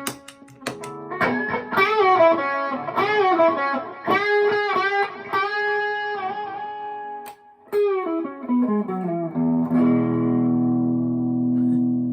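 Harley Benton SC-DLX electric guitar played through a Tone City King of Blues two-channel overdrive pedal, giving a bitey overdriven tone. It plays bluesy lead lines with string bends after a few short choppy notes at the start, then steps down and lets a low chord ring for the last couple of seconds.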